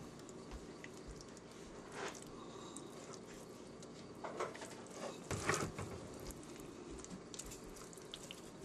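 Raw rib meat being handled by hand in a stainless steel sink: faint, short handling noises a few times, the loudest about five and a half seconds in, over a steady low hum.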